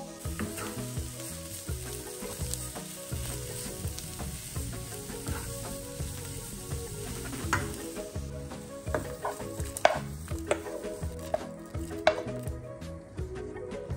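Diced onion and grated carrot sizzling as they fry in vegetable oil in a pan, stirred with a wooden spatula, with a few sharp knocks of the spatula against the pan. The sizzle drops away near the end.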